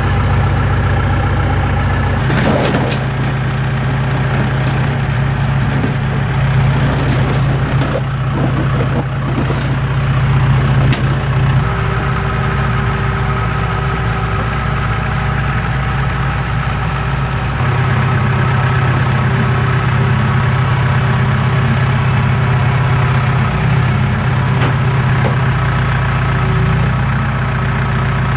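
John Deere 210LE loader's diesel engine running steadily, with no revving, its low hum changing tone slightly a couple of times.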